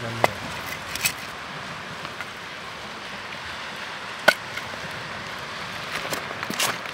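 Split firewood pieces being set down onto stones in a fire pit: about four sharp wooden knocks spaced several seconds apart, the loudest a little after four seconds in, over a steady background hiss.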